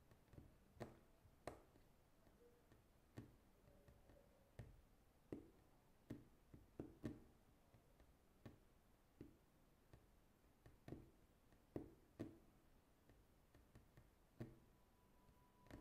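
Faint, irregularly spaced clicks and taps, roughly one or two a second, over quiet room tone.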